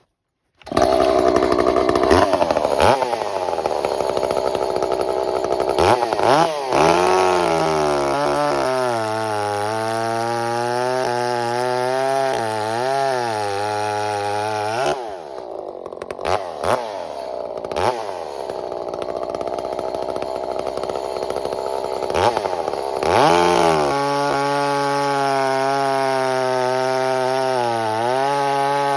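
Ported and piped Echo CS-590 Timberwolf two-stroke chainsaw at high revs cutting sugar maple. It comes in about half a second in, and its pitch dips and recovers over and over as the chain loads in the wood, with short drops in revs near the middle.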